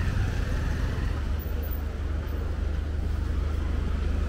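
Steady low rumble of busy street ambience, with a faint hubbub of background noise above it.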